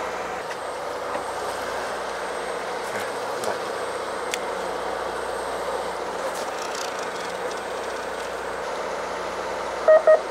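Fishing boat's engine running steadily, an even drone throughout. Near the end come two short, loud, high beeps.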